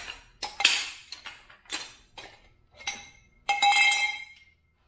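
Steel hand tools (a socket, ratchet and breaker bar) clinking and clanking against each other and the concrete floor: a string of sharp metallic knocks. The loudest comes about three and a half seconds in and rings on for most of a second.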